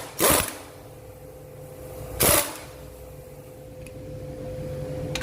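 Two short, loud bursts about two seconds apart as a coil-spring compressor is tightened on a shock absorber strut, over a steady low hum.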